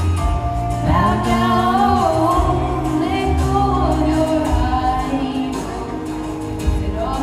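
A girl singing a pop song into a microphone, holding and bending long notes over a backing track with a steady bass line.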